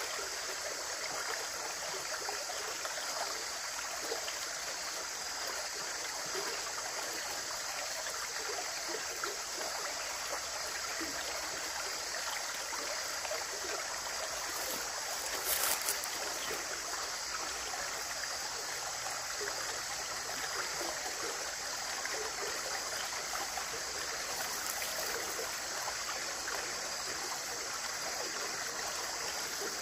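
Running water flowing steadily, an even rushing noise with no let-up, and one brief louder burst about halfway through.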